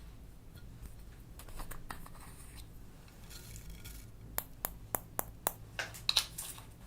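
Quiet rubbing and handling noise, then a quick run of about six sharp clicks, roughly four a second, a little over four seconds in, followed by a couple of louder scraping rustles.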